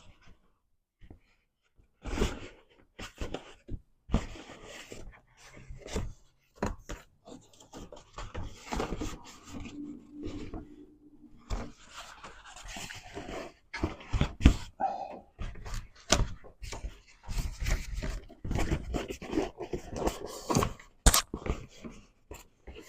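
Hands working on a car door's trim: irregular rustling and scraping of plastic parts with scattered clicks and knocks, the sharpest a little before the middle and near the end.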